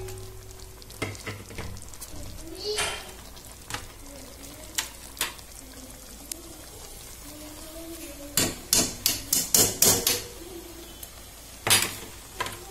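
Metal spoon knocking and scraping against a metal cooking pot as half-boiled basmati rice is spread over the biryani masala. A few scattered clicks come first, then a quick run of about eight sharp taps in the second half and one more near the end.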